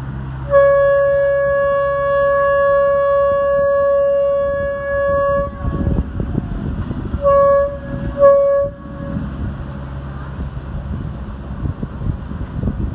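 A boat's horn sounds one long blast of about five seconds, then two short blasts about a second apart, as a small launch pulls away from the dock. A steady low engine rumble runs beneath.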